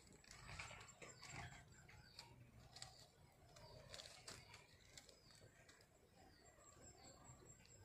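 Near silence, broken by faint, scattered crackles of dry palm fronds as kittens scuffle on them, with faint bird chirps.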